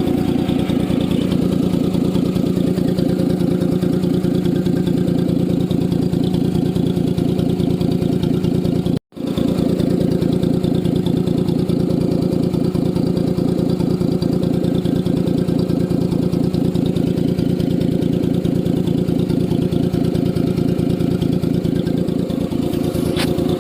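Maruti Suzuki Alto engine idling with a leaking, split exhaust silencer: a loud, steady, rapid exhaust pulsing blowing out through the hole. The sound cuts out for a moment about nine seconds in.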